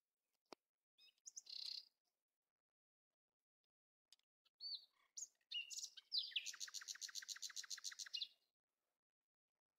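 Small birds chirping: a brief chirp, then scattered high calls ending in a fast run of repeated notes lasting about two seconds.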